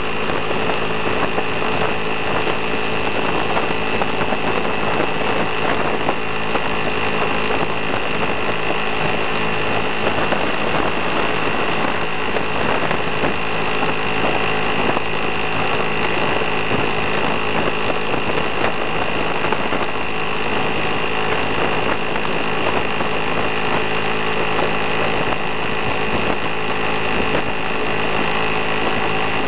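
Vespa scooter engine running steadily at a constant cruising speed, under a rush of wind and road noise from riding.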